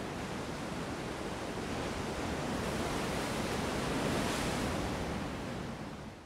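A steady, even rushing noise with no pitch or beat. It swells slightly about four seconds in, then fades out quickly at the very end.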